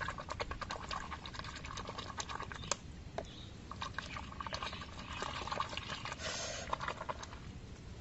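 Fingers churning muddy water in a small hole in the ground, stirring in toothpaste and whipping it into froth: a rapid wet squelching and splashing in two bouts, with a short pause about three seconds in.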